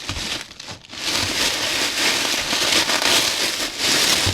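Gift wrapping being handled and unwrapped, crinkling and rustling loudly in uneven surges, with a short lull about half a second in.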